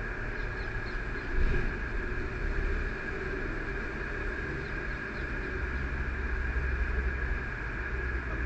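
Steady background noise: a low rumble with a constant high, thin hum over it, and no distinct calls or knocks.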